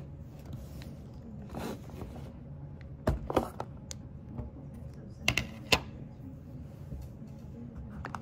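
Clear plastic food container being opened and handled: a couple of sharp plastic clicks about three seconds in as the snap-on lid comes off, then a quick cluster of plastic knocks a couple of seconds later.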